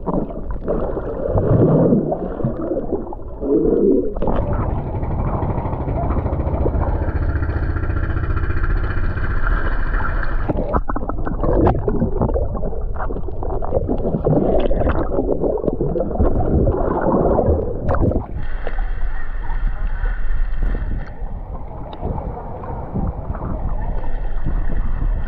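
Water splashing and sloshing with a steady low rumble and wind buffeting the microphone. A faint steady whine comes and goes a few times over the rumble.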